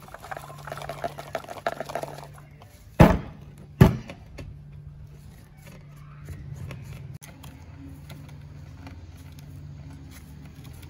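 Rusty old chainsaw body handled on a workbench: scraping and rattling, then two sharp knocks about three and four seconds in as it is set down on the table. After that, faint screwdriver work on a cover screw over a steady low hum.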